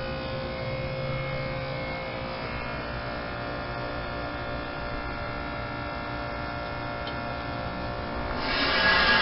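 Outdoor heat pump unit running in heat mode, a steady electric hum of the compressor and fan motor. A louder rushing noise comes in near the end.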